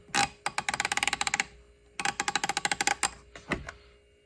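Half-inch drive ratchet wrench being worked back and forth, its pawl clicking quickly over the gear teeth in two runs of about a second each, roughly fourteen clicks a second. A light metal clink comes just before and just after.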